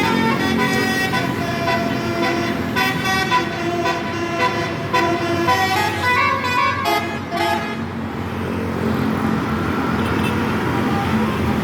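Basuri bus's 'telolet' horn, a set of several air horns playing a quick multi-note tune over the rumble of the bus and traffic. The tune stops about eight seconds in, leaving steady traffic noise.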